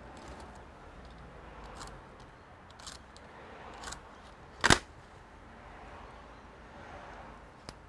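Small clicks and taps from handling a computer's parts and tools, with one sharp, loud click a little past halfway.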